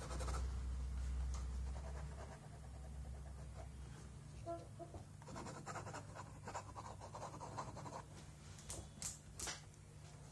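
Pen scratching on sketchbook paper in short strokes as figures are written. A low hum fills the first couple of seconds, and a few sharp clicks come near the end.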